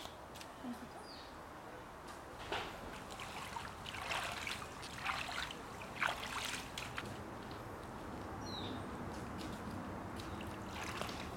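Small splashes and trickling as a hand is dipped and swished in shallow water, a few light splashes standing out over a steady hiss.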